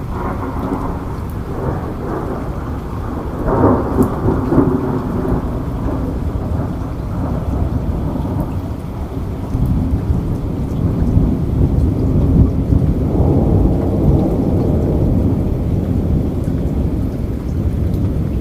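Steady rain in a thunderstorm, with rolling thunder rumbling underneath; the thunder swells about four seconds in and again past the middle.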